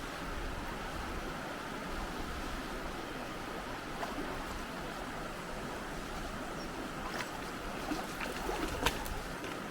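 A river running steadily over stones, with a few short clicks near the end.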